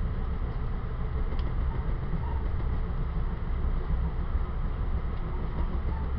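Steady low rumble of an ex-Metroliner cab car on an Amtrak Keystone Service train running at speed, heard from inside the car.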